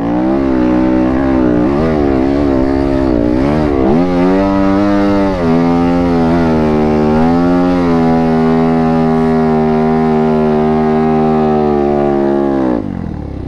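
Yamaha WR250F's single-cylinder four-stroke engine at full throttle under load climbing a sand hill: the revs rise and fall for the first few seconds, then hold steady and high for a long pull, dropping off about a second before the end.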